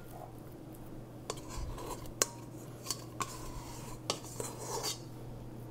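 A bowl scraper scraping ground pork out of a stainless steel stand-mixer bowl, with several light clinks and taps of the metal bowl against a glass bowl.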